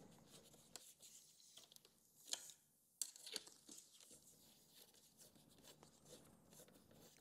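Faint clicks and scrapes of a No. 2 screwdriver turning screws into a plastic speaker adapter ring, with a few sharper clicks a little past two seconds and around three seconds in.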